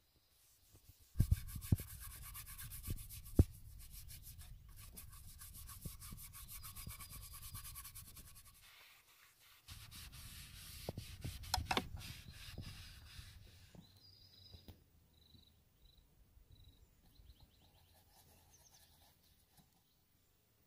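Paper towel rubbed and scrubbed over a canvas on an easel, in two stretches with a short pause between, with a few sharp knocks along the way. It dies away in the last few seconds.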